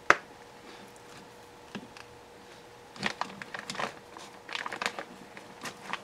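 Hand crimping pliers and an insulated male spade terminal being worked onto a wire: one sharp snap right at the start, then scattered small clicks and crinkly handling noise from about halfway on.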